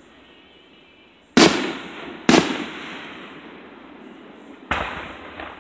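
Aerial firework shells bursting: three sharp bangs, the first two about a second apart and the third a couple of seconds later, each fading away over a second or so.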